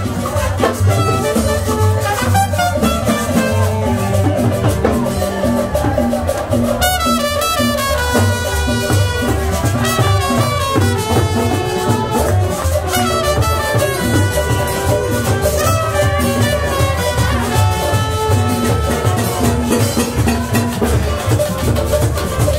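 Live street band playing a Latin dance tune: trumpet melody over a steady drum beat.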